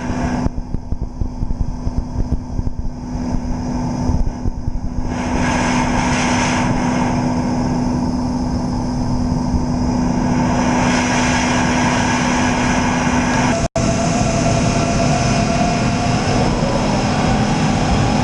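Giddings and Lewis CNC vertical borer running: a steady low hum with a whirring rush that grows louder from about five seconds in. After a momentary dropout near the end, a higher whine comes in.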